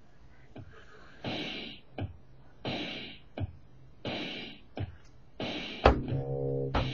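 A slow drum beat: low kick thuds alternating with hissing hits, one about every 0.7 s. About six seconds in, guitar and bass come in over it.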